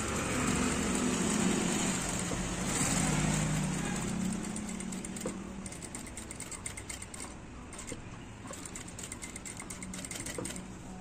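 Electric sewing machine running and stitching through fabric: a steady motor hum with fast needle clatter, louder in the first half and quieter after about six seconds.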